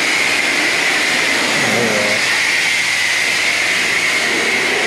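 Steady hiss of a high-pressure spray wand in a self-serve car wash bay, running without a break.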